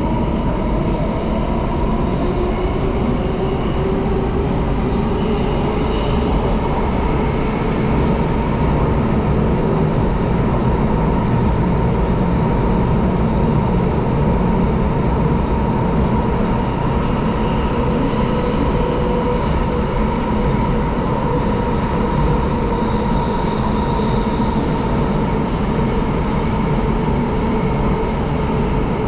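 Singapore MRT train running between stations, heard from inside the carriage: a steady rumble of wheels on rail with a faint whine holding at one pitch.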